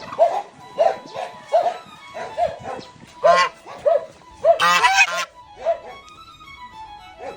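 A puppy yapping over and over, about two short yaps a second, with a longer, louder yelp about halfway through. A few music notes step down near the end.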